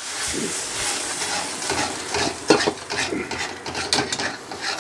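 A spatula stirring and scraping a wet gram-flour and spice mixture around a metal kadhai, with irregular scrapes and light clicks against the pan. Under it the mixture sizzles faintly in the hot pan, with a splash of water just added.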